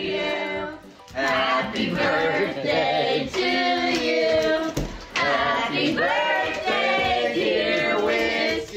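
A group of people singing a tune together in short phrases of held notes.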